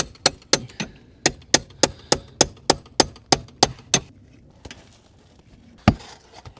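Hand hammer striking in a quick steady run, about three blows a second with a ringing metallic note, stopping about four seconds in, then one more blow near the end. Nailing in aluminum step flashing along a siding wall.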